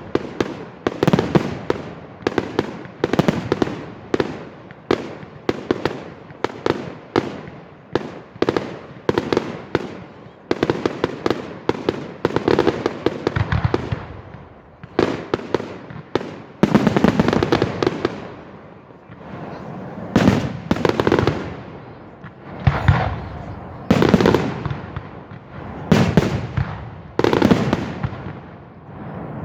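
Fireworks display: a rapid barrage of sharp bangs, several a second, thinning about halfway through into fewer, bigger bursts, each trailing off over about a second.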